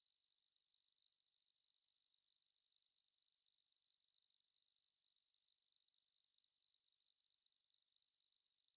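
Synthetic sine tone simulating tinnitus: a single steady, high-pitched ringing tone held without any change in pitch or loudness.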